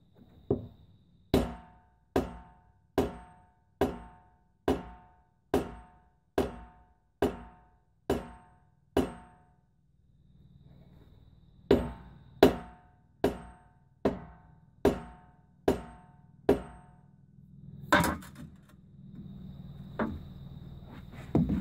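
Sledgehammer blows on a loader's mounted tire and wheel, knocking it into place and centring it on the hub. A run of about eleven steady blows, a little under one a second, is followed by a short pause, seven more, and then a few scattered heavier blows near the end.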